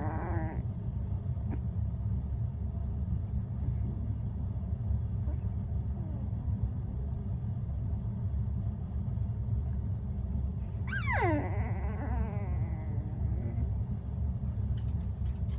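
Corgi puppy whimpering in its sleep: a short falling whine at the very start and a clearer one about 11 seconds in that slides down in pitch, over a steady low rumble.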